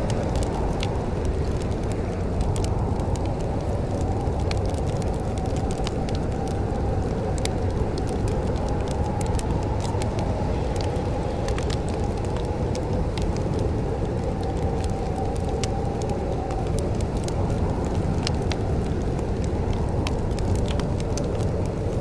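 Wood fire crackling in a fireplace, with scattered sharp pops and snaps over a steady low rumble.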